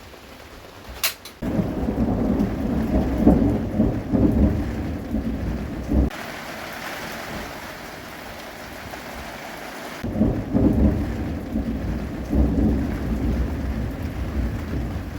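Thunder rumbling in two long, uneven rolls, with rain hissing steadily in the gap between them.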